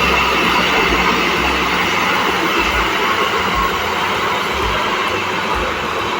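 Heavy road-construction machinery running steadily, a continuous loud rumble with a faint steady hum.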